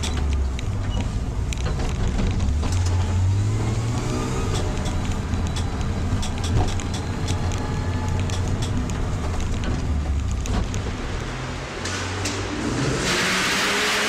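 BMW sedan's engine running and revving as the car drifts, its pitch rising and falling. About a second before the end, a loud steady hiss of sliding tyres sets in.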